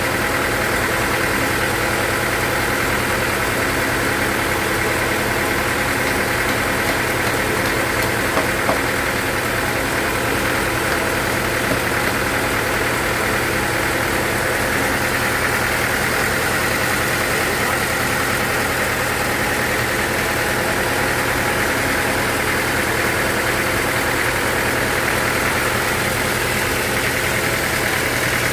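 Sawmill machinery running steadily: an even engine-like hum with a constant high hiss over it.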